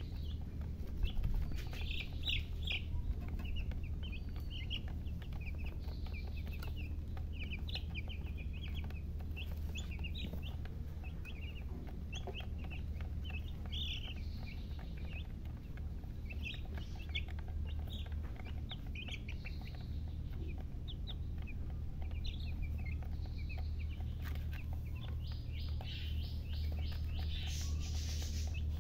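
Baby chicks peeping: many short, high chirps in quick succession, overlapping throughout, over a steady low hum.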